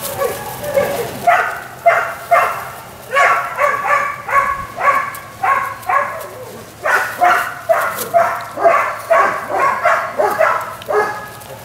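Five-week-old Weimaraner puppy yipping: a run of short, high-pitched yips about two a second, with a brief pause about halfway through.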